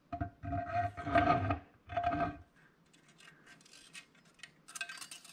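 Main shaft of an NP435 transmission being pulled out of its gearbox case: metal scraping against metal with a ringing tone, in three spells over the first two and a half seconds, then light metallic clicks and rattles.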